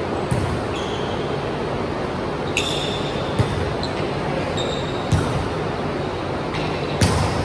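Volleyball rally in a gym: about five sharp smacks of the ball being hit, with short squeaks of sneakers on the hardwood floor, over steady hall noise that echoes.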